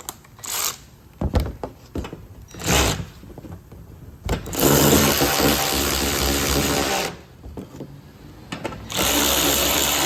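Handheld power drill/driver running fasteners in, likely the bolts that hold the shield under the engine. A few short blips come first, then two steady runs of about two and a half seconds and two seconds, the second near the end.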